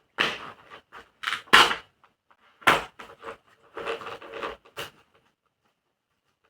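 Helmet's interior padding being pulled out by hand: a string of sharp pops and short rasping tears as its fasteners come loose, the loudest pops about one and a half and two and a half seconds in.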